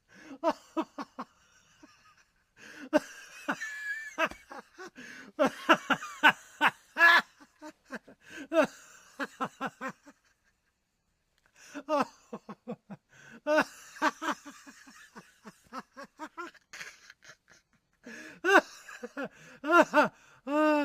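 A man laughing heartily in repeated bursts of quick ha-ha pulses, with short pauses between bouts; the last laugh ends in a drawn-out falling tone.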